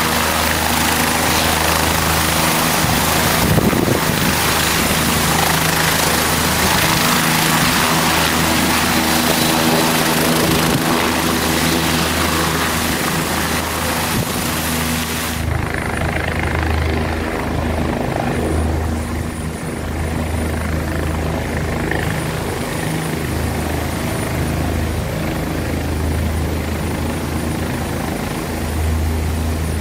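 OH-58D Kiowa Warrior scout helicopter running on the ground with its rotor turning: a loud, steady low throb under a rushing turbine hiss. About halfway through, the high hiss falls away abruptly and the throb sounds more distant.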